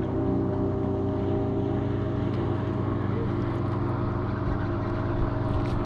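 Boat motor running steadily with a low hum, its pitch shifting slightly right at the start. A few sharp clicks near the end.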